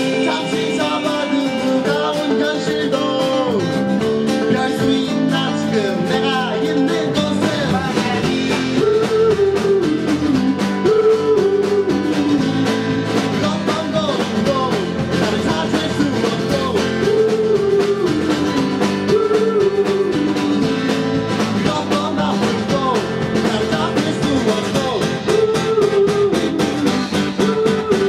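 Live music: singing with guitar accompaniment.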